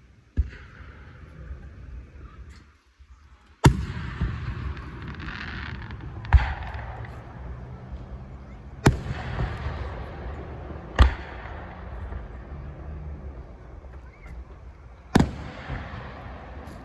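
Fireworks bursting: about six sharp bangs a few seconds apart, with a steady rushing noise between them.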